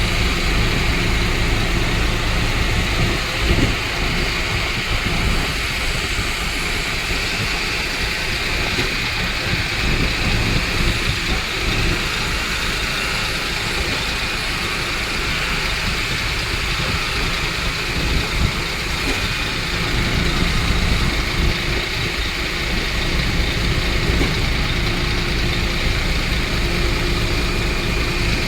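Concrete pump truck's engine running steadily at an even level.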